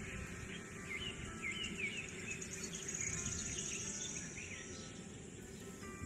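Small birds chirping over and over, in short rising and falling notes, with a high insect buzz swelling in the middle, over a steady background hiss.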